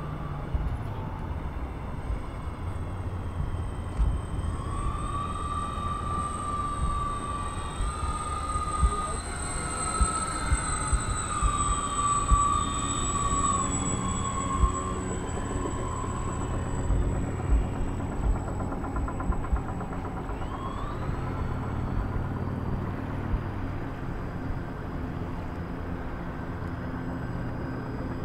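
Multi-engine RC model flying boat flying past, its motors and propellers making a whine that swells and rises in pitch, then falls away as it passes. A second whine rises again later. Wind buffets the microphone with low rumbles and thumps throughout.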